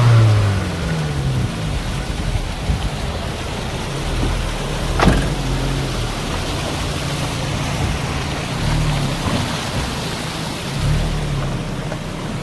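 Nissan March engine revving as the stuck car is driven in the mud. The revs are high at the start, fall away about a second in, and rise briefly twice later. A single sharp click comes about five seconds in.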